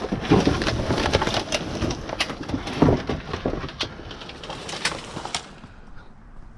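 Rummaging through junk: dense rustling, crinkling and clattering of items being handled, which stops suddenly about five seconds in.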